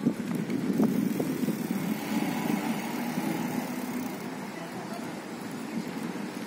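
A car engine running nearby, a steady low hum that eases off slightly partway through.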